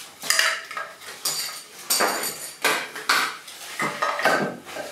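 Metal and plastic parts of a scooter wiring loom, including its chrome headlight and switch housings, clinking and clattering against each other and the concrete floor as the loom is laid out and handled. It is a string of sharp clatters about every half second, some with a brief metallic ring.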